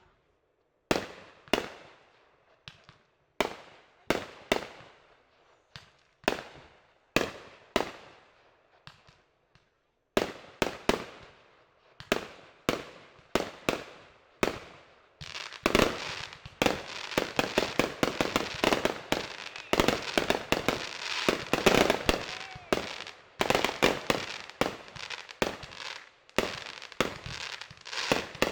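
Fireworks exploding: separate sharp bangs about once a second, each trailing off, then from about halfway a dense run of rapid bangs and crackling for several seconds before single bangs return.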